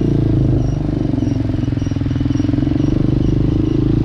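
Hawk 250 dual-sport motorcycle's single-cylinder engine running at a steady throttle while riding, with a faint high chirp repeating about three times a second. It is fitted with an E3 spark plug, which the rider finds gives softer, smooth-running power.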